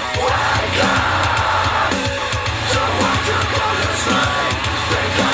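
A song played back through a JBL Flip 6 portable Bluetooth speaker, with a steady beat and bass line.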